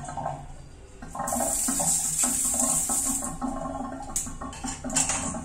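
A chrome bathroom jet spray (health faucet) is squeezed open and sprays water hard for about two seconds, then is let go. Two sharp clicks come near the end. The supply runs without a pressure pump.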